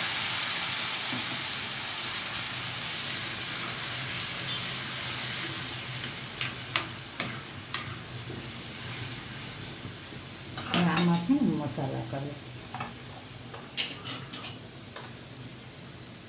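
Vegetables and water sizzling in hot tempering oil in a steel kadai, loud at first and dying down. A metal spatula stirs the bottle gourd and chana dal, clinking and scraping against the pan several times in the second half, most loudly around the middle.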